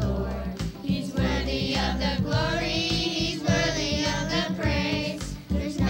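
Christian gospel theme song: singing over a band with a steady beat.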